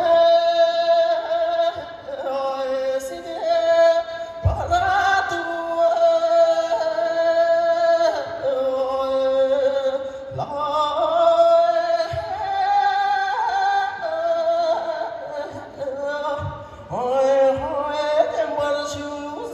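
A high, clear voice singing a Tibetan song, holding long notes with a wavering vibrato and quick ornamental turns between phrases.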